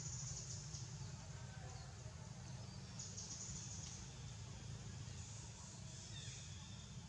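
Outdoor ambience of insects trilling in high, pulsed bursts about a second long, three times, over a steady low rumble. A faint falling whistle, like a bird call, comes about six seconds in.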